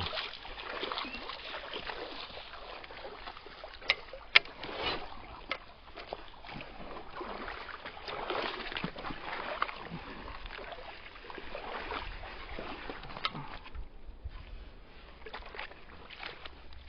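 Creek water sloshing and splashing, with a few sharp knocks about four seconds in.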